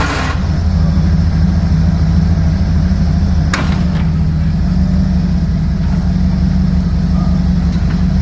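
Vehicle engine idling steadily, with two short sharp clicks about three and a half and four seconds in.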